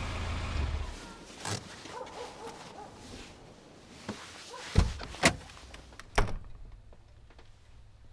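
A low steady rumble, like an engine, stops about a second in. Then come several separate knocks and thuds, the three loudest close together a little past the middle.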